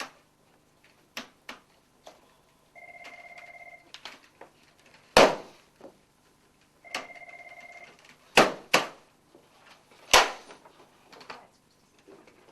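A desk telephone rings in short trilling bursts about four seconds apart, broken by four heavy blows that are the loudest sounds: a sledgehammer smashing a workplace printer. A few lighter knocks fall in between.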